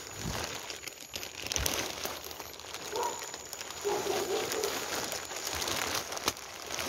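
Crinkling and rustling, with scattered snaps and clicks, as someone pushes through dense undergrowth while handling plastic sheeting.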